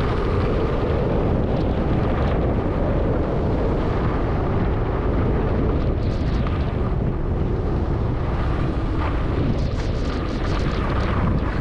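Steady wind noise on the microphone of a skier's camera moving downhill at speed, with the hiss and scrape of skis carving groomed snow, strongest about six seconds in and again near the end.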